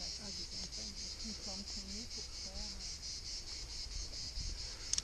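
Insects chirring steadily, a high-pitched pulsing chorus at about four pulses a second.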